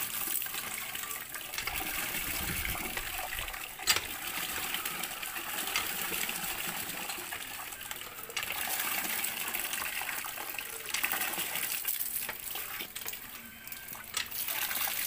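Water gushing from the spout of a cast-iron hand pump and splashing into a plastic basin, steady throughout. One sharp knock about four seconds in.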